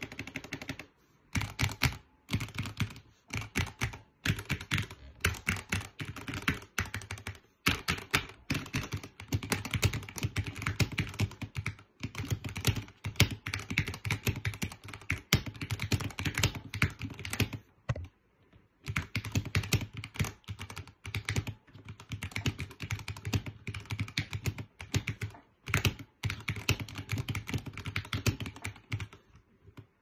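Ducky One 2 Mini mechanical keyboard, foam-, tape- and penny-modded, being typed on quickly in runs of rapid keystrokes with short pauses between them.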